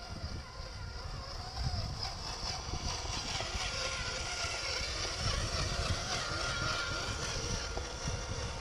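Electric motor and gearbox of a radio-controlled scale 4x4 crawler truck whining as it drives past on gravel towing a boat trailer, louder as it comes close, over a low wind rumble on the microphone.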